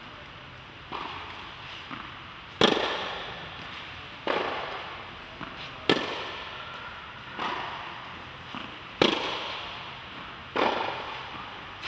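Tennis balls struck back and forth by rackets in a rally: about six sharp hits roughly a second and a half apart, with fainter knocks of bounces on the clay between. Each hit echoes in the enclosed hall.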